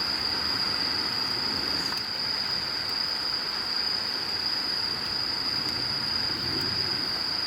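Crickets or similar night insects singing in one continuous, unbroken high trill, over a steady hiss of background noise.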